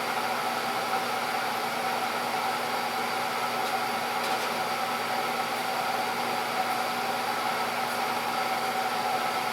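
Steady electrical hum with several fixed tones over a light hiss, from the power supply driving a DIY electrolysis rust-removal tank.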